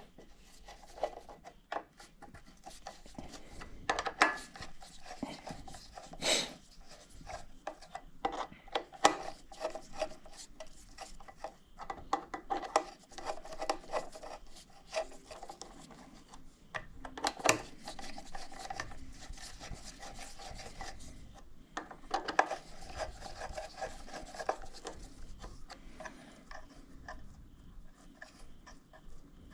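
A hand socket ratchet clicking in runs as bolts on the engine's intake are worked loose, with metal tools clinking and knocking now and then.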